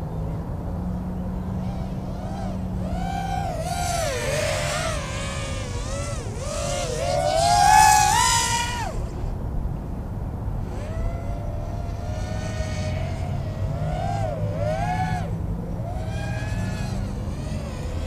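4-inch racing quadcopter's brushless motors whining, the pitch rising and falling as the throttle changes in flight. The loudest moment is a throttle punch about eight seconds in, with the whine climbing steeply.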